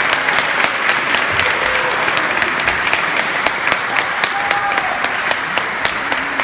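An audience applauding steadily, with sharp single claps standing out close to the microphone.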